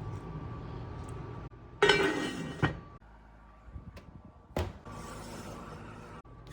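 A loud, ringing clatter of cookware being handled about two seconds in, then a single short knock a couple of seconds later, over low kitchen background.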